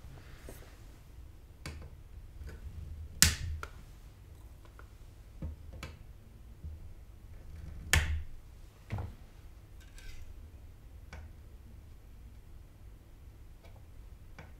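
Flush cutters snipping capacitor leads on the back of a motherboard: two sharp snaps about three and eight seconds in, with lighter clicks between.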